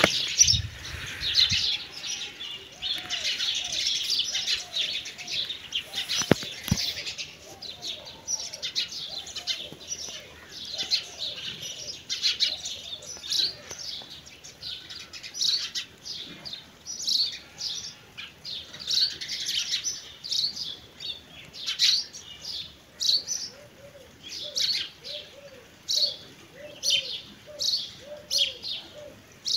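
Many small birds chirping in a dense, continuous chorus, with a lower call repeating underneath. A couple of brief knocks stand out, one near the start and the loudest about six seconds in.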